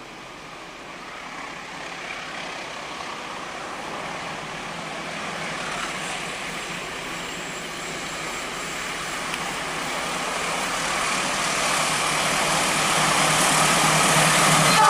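A diesel-electric passenger locomotive and its train approach, the engine's running and the rumble of the wheels growing steadily louder as it draws near.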